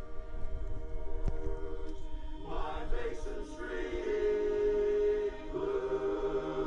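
A barbershop chorus singing a cappella in close harmony, holding long chords that swell louder partway through and move to a new chord near the end.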